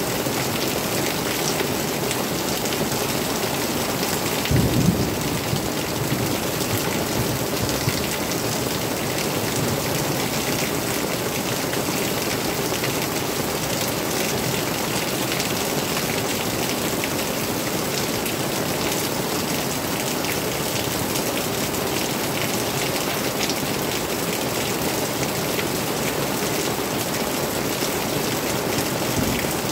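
Steady rain falling on dense foliage and a covered roof, an even hiss of drops. A brief low thump about five seconds in.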